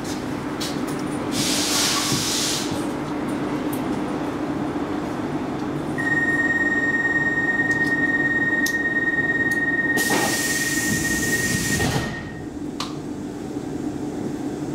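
Stockholm metro C14 train standing at a platform, its equipment humming steadily. A short hiss of air comes about two seconds in. About six seconds in, a steady high beep starts and lasts about six seconds, the doors' closing warning, and near its end a louder two-second hiss of air comes as the doors close.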